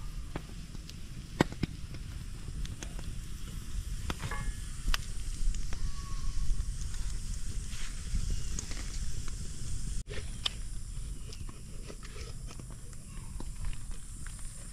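Open wood cooking fire crackling, with scattered sharp pops and ticks over a steady low rumble. The sound drops out abruptly for an instant about ten seconds in.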